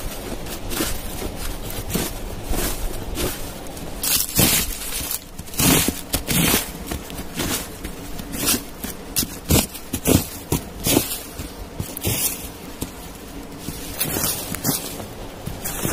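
Rubber boots crunching and scuffing through dry fallen leaves, in irregular steps and scrapes.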